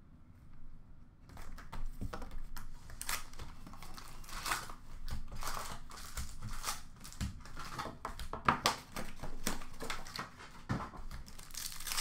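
The plastic wrap and cardboard of a sealed box of Upper Deck Extended hockey cards being torn open, with irregular crinkling and rustling starting about a second in, then foil card packs rustling as they are lifted out of the box.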